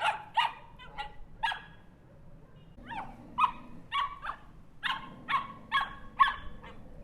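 Small dog barking in short, high-pitched barks: a run of four, a pause of about a second, then eight more at about two a second.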